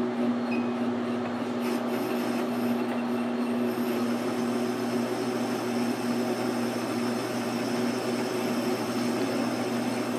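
Precision Matthews 12x36 metal lathe running at 205 RPM with a parting blade feeding into a spinning steel bar: a steady hum from the lathe drive under the continuous rasping, rubbing noise of the cut.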